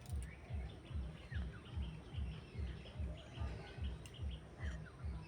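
Faint bird chirps in the background over a low, regular pulsing that repeats a little over twice a second.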